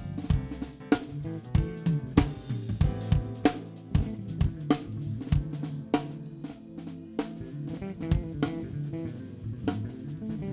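Live drum kit playing a groove (kick, snare, hi-hat and cymbals) with electric bass guitar notes underneath, during a band sound check. The drum hits are dense at first and thin out after about six seconds.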